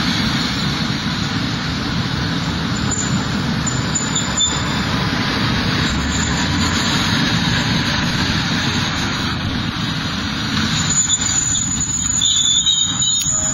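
Tram running past with a steady rumble and high-pitched squealing of its wheels on the rails, coming and going and strongest near the end.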